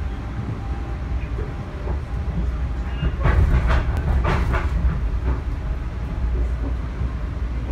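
Passenger train running at speed, heard from inside the carriage: a steady low rumble of wheels on rail that grows louder and rattlier for a couple of seconds around the middle.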